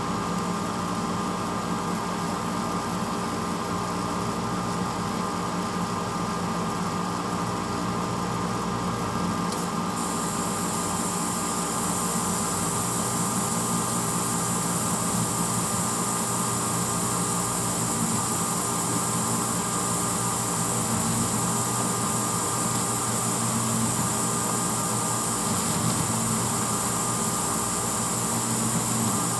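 1986 Hotpoint Potwasher dishwasher running: the steady hum of its motor with a broad hiss of washing inside the tub. About ten seconds in, a brighter, higher hiss joins and holds steady.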